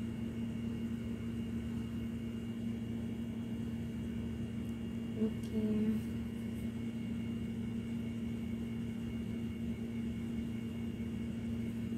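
Steady mechanical hum with a constant droning tone, from a machine running in a small room; a short brief sound rises over it a little past halfway.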